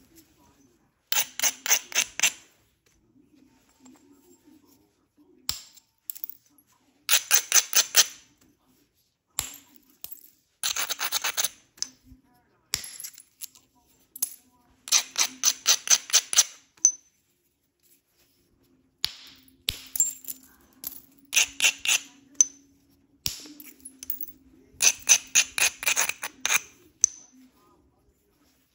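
Stone abrader rubbed along the edge of a heat-treated Flint River chert biface, grinding the platforms before the next strike. It comes in repeated bursts of quick scraping strokes, about six a second, with short pauses between the bursts.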